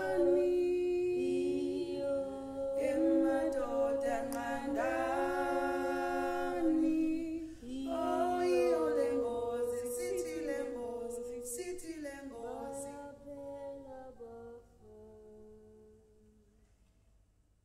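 Unaccompanied voices singing slow, held notes in harmony, gliding from note to note, then dying away over the last few seconds.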